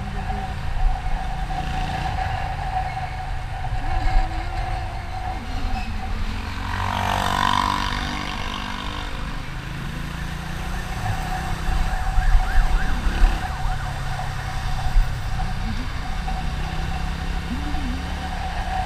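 Steady road and engine noise of a moving vehicle, with a constant whine and a louder pitched swell about seven seconds in, like another vehicle passing close by.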